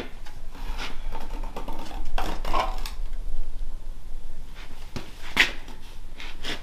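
Self-leveling concrete slurry being poured from a plastic five-gallon bucket onto the floor, with a few sharp knocks and clicks, the sharpest about five seconds in.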